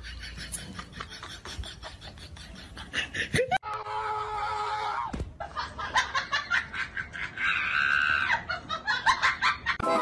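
People laughing in quick repeated bursts, broken by a short pitched cry about four seconds in.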